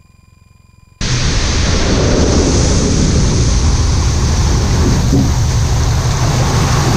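Loud rushing of water spray and wind on an exterior microphone as a Thurston Teal amphibian's hull cuts across a lake on its water run, with a low engine drone beneath. It starts suddenly about a second in, after a quiet stretch of faint cockpit-audio hum.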